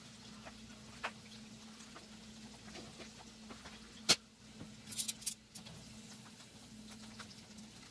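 Breaded chicken drumsticks shallow-frying in hot oil in a nonstick pan: a steady sizzle full of fine crackles over a faint steady hum. A sharp click about four seconds in and a few quicker clicks a second later as metal tongs touch the pan and turn a drumstick.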